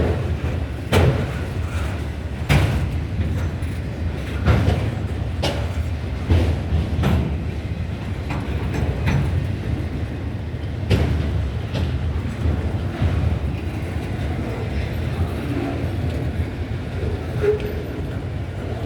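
CSX freight train rolling past: a steady low rumble of the cars, with sharp clacks of wheels over rail joints every second or two, fewer in the second half.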